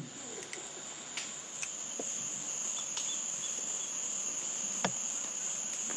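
Steady high-pitched insect chorus, with a few faint clicks scattered through it.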